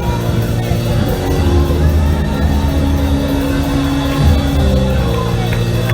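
Live church band music: sustained held chords over a heavy, steady bass, continuous throughout.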